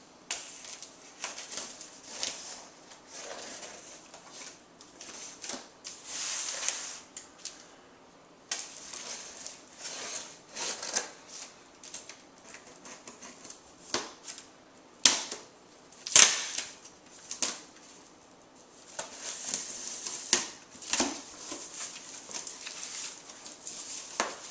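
A knife slitting packing tape on a cardboard box: irregular scratching and crinkling of tape and cardboard, broken by sharp clicks and taps, the loudest a pair of clicks about two-thirds of the way through.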